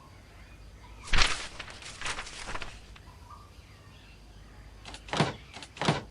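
Added sound effects of a door being worked: a long noisy rush about a second in, then two short rushes near the end. Faint birdsong ambience runs underneath.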